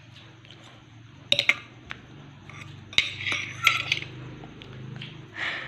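Eating utensils clinking against a dish: a handful of sharp, separate clinks, over a faint steady low hum.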